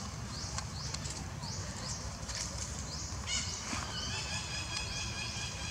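Forest background of short, high chirps repeating about twice a second, with a steady high trilling call joining about four seconds in, over a low rumble.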